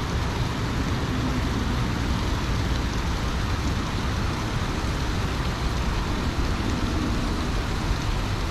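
Steady rushing outdoor noise with a low rumble underneath, even throughout, with no distinct events.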